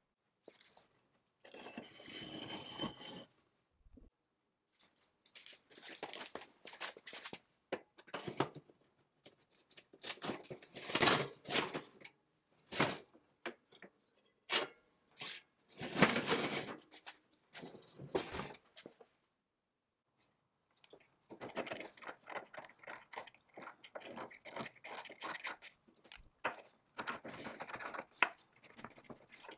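Workshop handling sounds: a brush dabbing black japanning paint onto cast-iron parts, then the wire oven rack carrying them being slid into a kitchen oven with loud metal clatters. Near the end, a knife blade is drawn repeatedly around the edge of a small ring in quick scraping strokes, shaving material off it.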